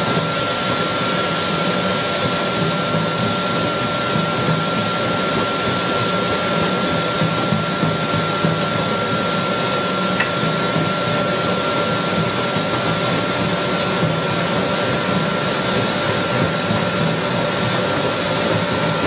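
Combined corn flour mill machine running steadily while milling maize, a loud even whir with a constant high whine over it.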